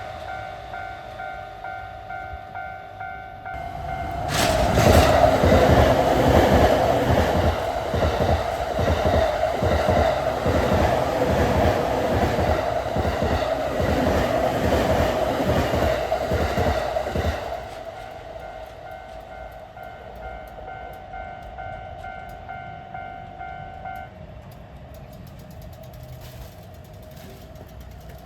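Japanese railroad crossing alarm ringing its repeating electronic "kan-kan" bell while an electric commuter train passes. The train comes in loud about four seconds in, its wheels clacking rhythmically for about thirteen seconds. The bell keeps ringing after the train has gone and stops about twenty-four seconds in.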